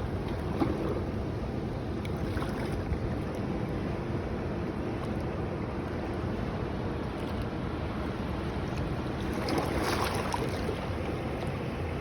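Ocean surf on a beach: a steady rumbling wash of waves, with one wave breaking and washing up more loudly a little before the end.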